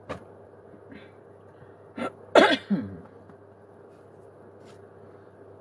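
A person sneezing once, about two seconds in: a short lead-in sound, then a loud burst whose pitch falls.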